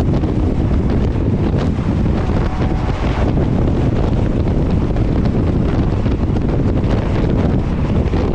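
Strong wind buffeting the microphone over the steady rumble of a moving train, with faint knocks here and there.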